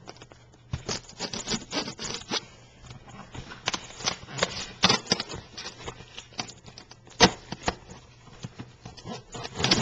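Packing material being pulled out of a shipping box by hand: irregular rustling and crinkling with scattered clicks, and one sharp snap about seven seconds in.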